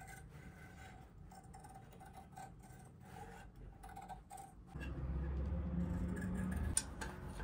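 Large shears cutting through soft leather: faint snipping at first, then a louder rubbing scrape lasting about two seconds, with a click near its end.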